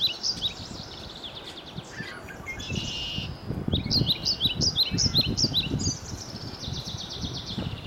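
Songbird singing: quick series of short, high, down-slurred notes, several a second, at the start and again from about three and a half seconds in, with a rapid high trill near the end. A low rumble runs under the middle seconds.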